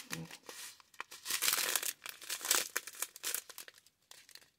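Thin plastic bags of diamond-painting resin drills being handled, crinkling in irregular rustles that die away in the last second.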